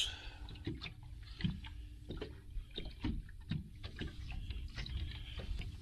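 Wind rumbling on the microphone, with small waves lapping against a fishing boat's hull and a few light knocks.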